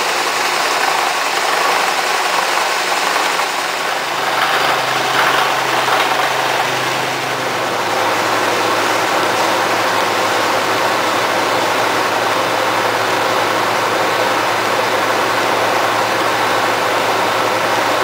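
Kearney & Trecker 2H horizontal milling machine running under power, its arbor-mounted cutter taking a cut in metal: a steady, even mechanical running noise.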